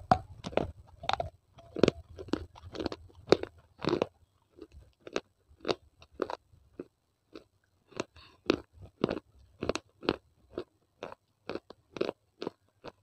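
Close-miked chewing of baked clay: fragments of a tiny terracotta pot crunched between the teeth, a steady run of sharp crunches about two a second.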